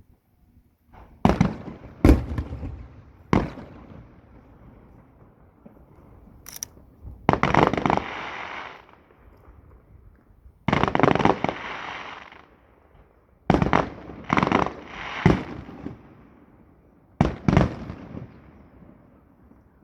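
Aerial fireworks going off: a few sharp bangs, then a series of longer crackling bursts, each lasting a second or so.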